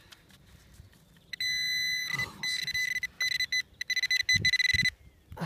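Handheld metal-detecting pinpointer sounding its steady high-pitched alert tone, starting about a second in and cutting in and out as it is moved over a metal target in the dug soil. A few dull thuds come near the end.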